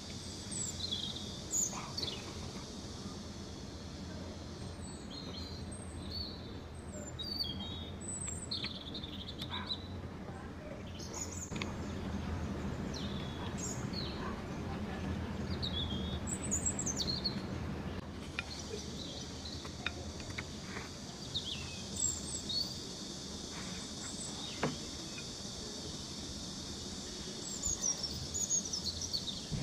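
Small birds chirping and twittering in short repeated calls over a steady high-pitched background hiss, with noodles being slurped up close.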